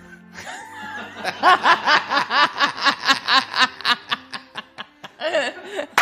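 Person laughing in a long run of quick, rhythmic ha-ha bursts, about five a second, easing briefly near the end before picking up again.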